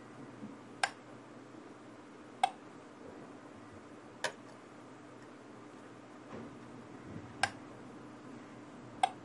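Relay of a 12 V cycle timer module clicking as it pulses mains power to a soldering iron on and off for temperature control: five sharp clicks, roughly one every two seconds with a longer gap midway.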